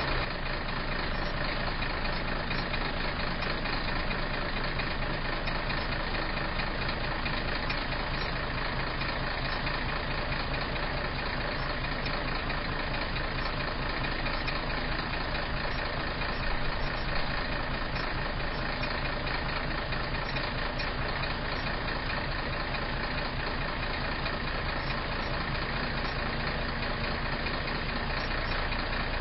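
Diesel engine of a Class A semi-truck idling steadily.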